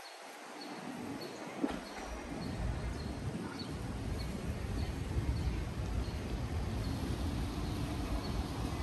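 Outdoor street ambience: a low rumble builds up after about two seconds, with a faint high tick repeating about twice a second.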